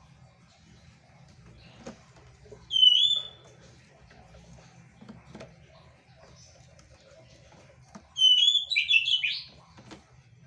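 Quail calling: one short high call about three seconds in, then near the end another call that runs into a quick string of falling notes.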